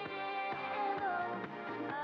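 Upbeat pop song played by a band with a steady drum beat, a woman singing the lead into a handheld microphone.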